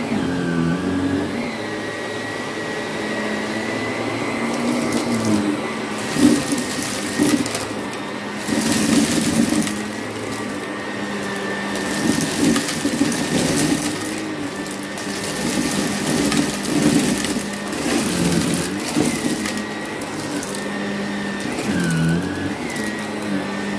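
Vacuum cleaner running on a rug: a steady motor whine that dips briefly in pitch near the start and again near the end, with rushing noise that swells and fades several times.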